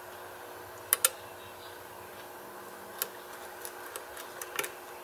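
A steel lock pick clicking and ticking against the pins of a pin-tumbler lock held under light tension during single-pin picking. There are two sharp clicks about a second in, one more near three seconds, then a run of lighter ticks near the end, over a steady faint hum.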